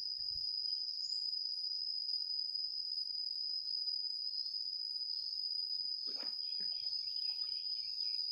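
Steady high-pitched drone of insects, with a splash about six seconds in as a hand-thrown cast net lands on the water.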